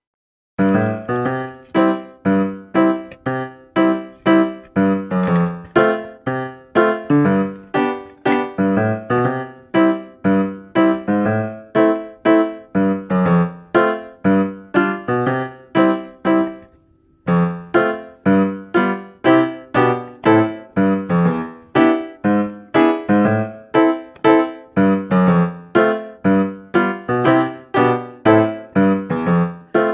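Background music: a piano-like keyboard playing a light tune in a steady run of short, evenly spaced notes, with a brief pause about halfway through.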